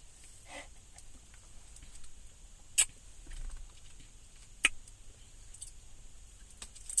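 Quiet sipping through a straw from a fast-food drink cup, with two short sharp clicks about three and four and a half seconds in.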